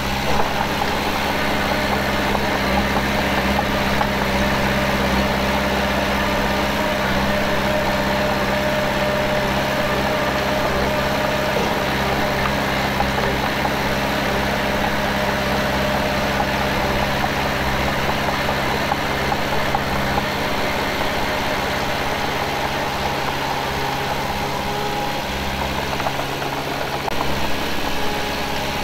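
Diesel engine of heavy earthmoving equipment running steadily at an even speed, with no revving.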